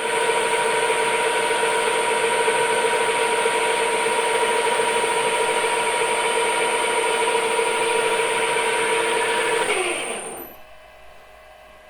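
Lathe boring bar chattering in the cut: a loud, steady ringing squeal with several overtones over the cutting noise, which stops about ten seconds in, leaving the quieter hum of the running machine. The squeal is the flimsy boring bar vibrating, the cause of the horrible surface finish.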